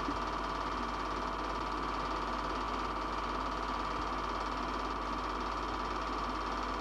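8mm film projector running: a steady mechanical whir with a fast, even flutter over a low hum.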